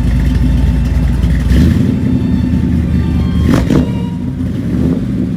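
1955 Chevrolet Bel Air's engine running at idle, heard close to its tailpipe, with a steady low exhaust note.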